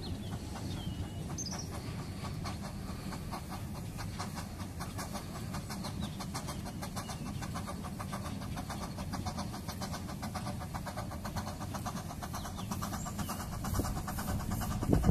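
Narrow-gauge steam locomotive No. 3 Rishra working in the distance, its exhaust beats coming as a quick, even chuffing over a low rumble; it grows louder near the end.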